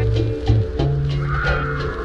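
Background music: an upbeat instrumental track with a bass line and a regular beat.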